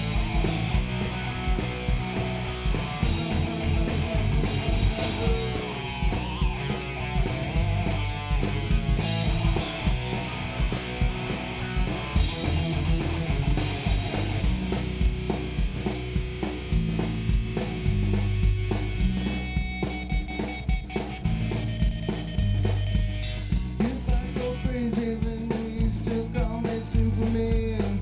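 Live rock band with drum kit, bass and electric guitars playing an instrumental passage of a 90s rock song, with a steady beat and no singing.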